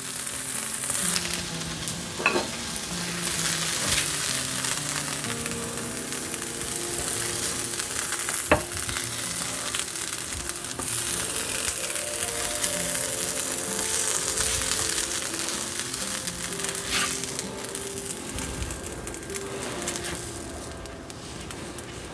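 Strips of spruce grouse meat sizzling on a hot electric griddle, with a few sharp clicks and scrapes of a spatula against the pan as the meat is moved onto a plate. The sizzle thins out near the end as the griddle empties.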